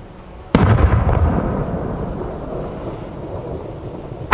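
An aerial firework shell bursting: a loud boom about half a second in that dies away slowly over two to three seconds, then another sharp bang right at the end.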